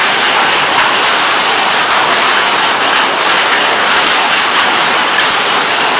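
Hail and heavy rain pelting down in a hailstorm: a loud, steady rush of impacts.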